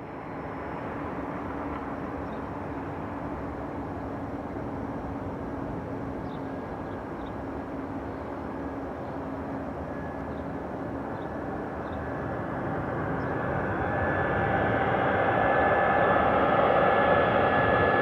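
Airbus A320's CFM56 jet engines on landing approach: a steady rushing hum that grows louder as the aircraft nears, with a high whine coming through over the last few seconds.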